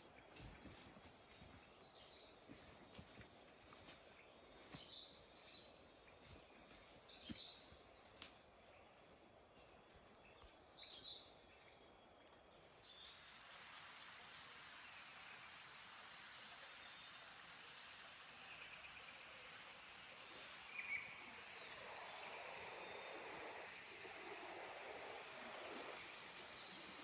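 Faint rainforest ambience: a steady high insect drone, with short chirping calls repeating through the first half. From about halfway a wider hiss fills in beneath the drone.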